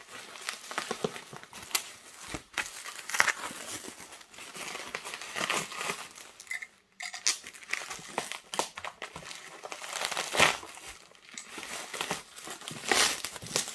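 Plastic bubble wrap crinkling and rustling as it is pulled open and handled, with sharp irregular crackles and a brief pause about seven seconds in.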